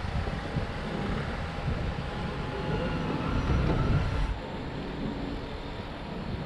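Outdoor urban ambience: a low, uneven rumble, easing off a little about two-thirds of the way in.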